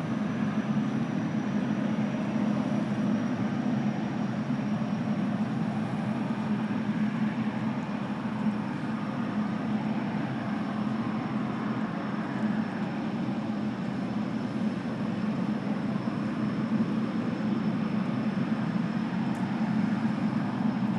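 Jet airliner engines running steadily at low power: an even low rumble with a faint high whine above it, unchanging throughout.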